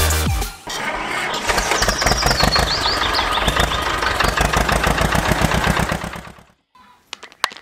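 Tractor engine starting about a second in and running with a rapid, even knock, then stopping about six and a half seconds in.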